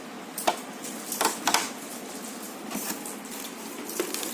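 Several light clicks and knocks, scattered and uneven, over a steady hiss.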